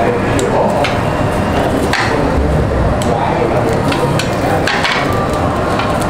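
Metal kitchen scissors and tongs clicking and clacking against a stainless steel tabletop barbecue grill plate, a few sharp knocks about a second apart. Under them is a steady noise from the grill and the restaurant.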